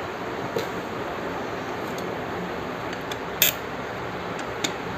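A few light metallic clicks and clinks, the loudest about three and a half seconds in, over a steady background hiss, as the Suzuki Access 125's crankshaft is turned slowly by hand, turning the new timing chain and oil pump chain on their sprockets.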